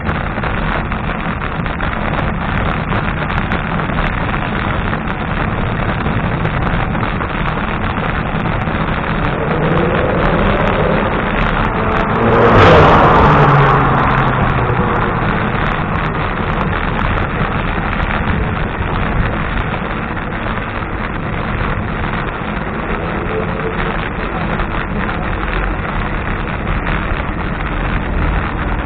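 Steady wind and road rumble on a bicycle-mounted camera's microphone while riding. About twelve seconds in, a car overtakes close by, its engine and tyres rising to the loudest point and then moving off ahead.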